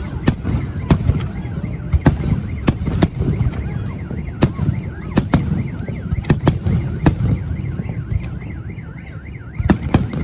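Fireworks salute bursting in a rapid, irregular string of sharp bangs, a dozen or more. Underneath, a car alarm's siren warbles up and down, plainest in the second half.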